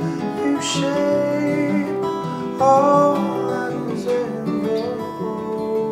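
Fingerpicked acoustic guitar playing a folk song, with a held melody line over it that bends between notes.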